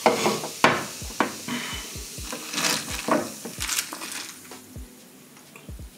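Ice cubes clinking against a glass as a straw stirs them in freshly poured cola, over the hiss of the fizzing carbonation. The clicks come irregularly, and they and the fizz grow fainter toward the end.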